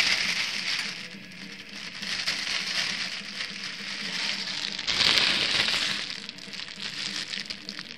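Thin plastic parts bags crinkling and rustling as they are handled, with a louder rustle about five seconds in.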